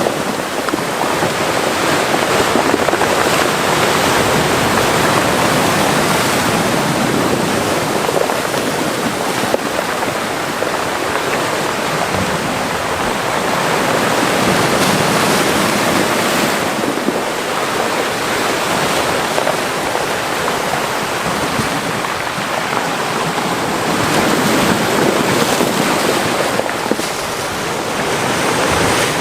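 Mediterranean sea waves washing into a small rocky cove, a steady rush of surf that swells and eases as each wave comes in.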